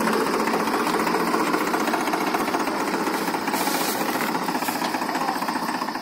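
Tractor diesel engine running steadily, a dense rough clatter.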